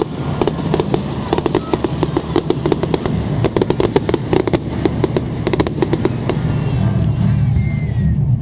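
Fireworks display going off in rapid succession, a dense run of sharp bangs and crackles that thins out near the end, over music played along with the display.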